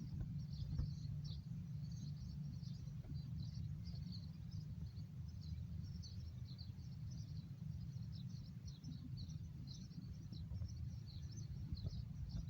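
Many small birds chirping in quick, irregular twitters over a steady low rumble.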